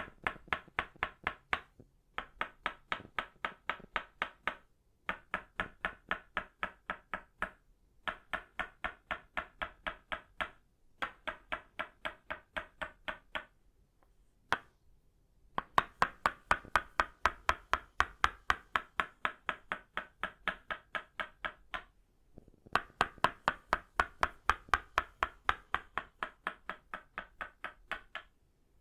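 Tok sen massage tools of itaúba wood, a wooden mallet striking a wooden peg: fast, even, ringing knocks about five a second, in runs of a few seconds with short pauses between, and one lone knock about halfway through.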